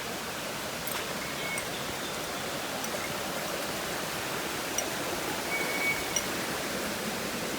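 Waterfall rushing in a steady, even wash of falling water, with two brief faint whistles over it.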